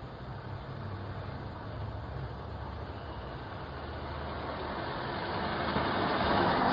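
A car approaching along the street, its engine and tyre noise growing steadily louder and loudest near the end, heard through a doorbell camera's microphone.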